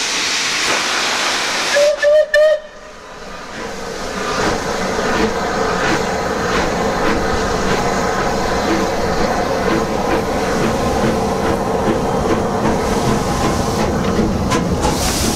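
Merchant Navy class steam locomotive 35028 Clan Line hissing steam from its cylinder drain cocks, then giving a few short whistle blasts about two seconds in. It then starts away, its exhaust beats and wheels building up as it pulls out past the platform.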